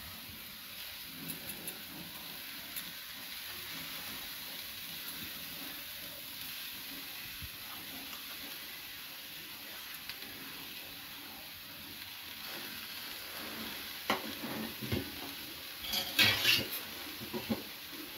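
Grated coconut and jaggery heating in a steel kadai on a gas burner, with a steady faint sizzle. Near the end a metal utensil clatters and knocks against the steel pan several times.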